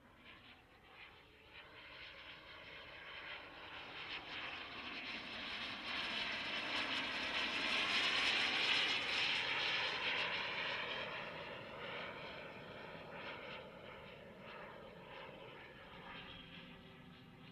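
Viper Jet's jet engine heard as it flies past: the engine sound grows louder to a peak about eight or nine seconds in, then fades away.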